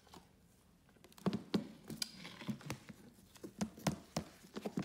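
Gloved hands handling a gold display briefcase as it is laid flat on the counter: a run of irregular light taps and clicks that starts about a second in.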